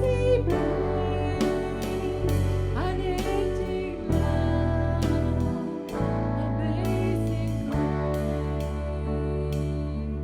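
Slow worship-band music: held keyboard chords over bass notes that change about every two seconds, with a wavering melody line on top.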